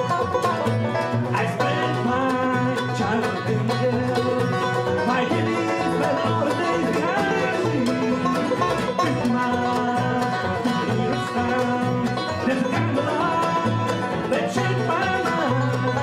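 A bluegrass band playing a song on banjo, mandolin, upright bass and acoustic guitar.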